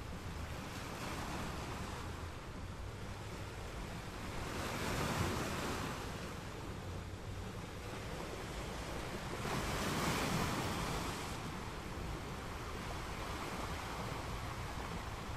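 Wind rushing across the microphone, a steady noise with low buffeting that swells louder twice, about five and ten seconds in.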